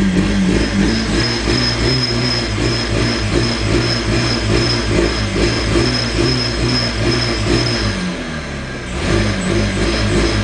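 VW Corrado G60's supercharged 1.8-litre four-cylinder engine running, its note shifting in pitch, with a thin high whine over it. The sound drops briefly about eight seconds in, then picks up again.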